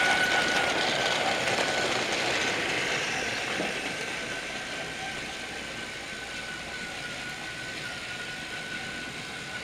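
Battery-powered TrackMaster motorized toy train running along plastic track, its small electric motor giving a steady whine over the clatter of its wagons, fading over the first few seconds and then holding steady at a lower level.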